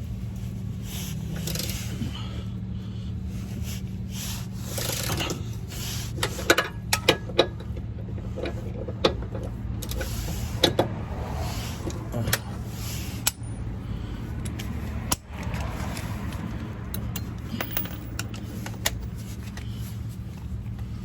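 Hand tools working on car bolts: metal clinks, knocks and scrapes, with a run of sharp clicks between about six and thirteen seconds in, over a steady low hum.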